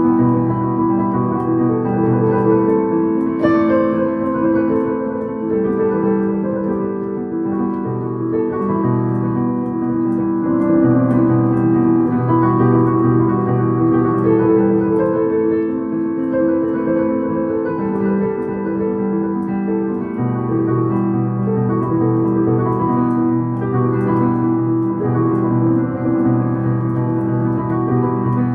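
Digital piano played solo: held chords over low bass notes, changing every second or two.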